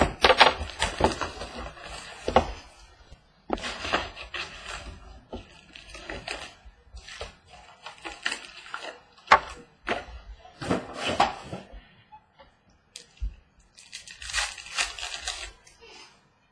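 A trading card pack wrapper being torn open and crinkled, and the cards inside handled, in irregular bursts of crinkling with sharp clicks and short pauses.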